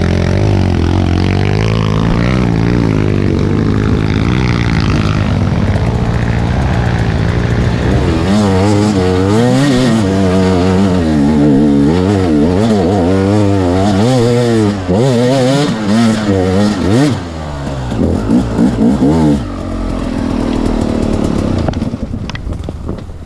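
KTM 250 EXC two-stroke enduro motorcycle engine running on a muddy trail ride: steady at low revs at first, then from about eight seconds in the revs rise and fall repeatedly with the throttle, and the engine gets quieter and more uneven near the end.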